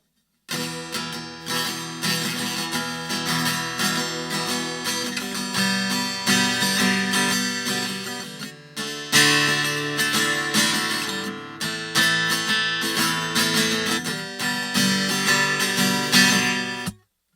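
Washburn WA45CE steel-string acoustic-electric guitar strummed in full chords, starting abruptly about half a second in and cutting off sharply near the end, briefly easing off around the middle.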